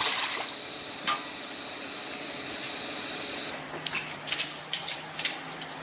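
Metal shovel blade scraping and slapping thick wet flood mud, first off concrete steps, then in a run of short scrapes and knocks as the mud is pushed across a floor from about three and a half seconds in. A steady high hiss runs under it and stops at that point.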